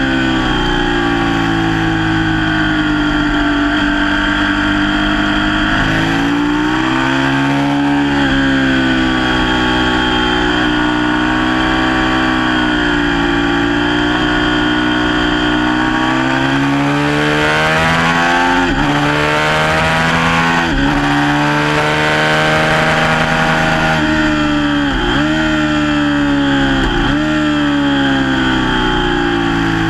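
Sport motorcycle engine heard from on board at track speed, its pitch rising and falling as the bike accelerates and slows through the corners. In the second half there are several quick, sharp dips in pitch.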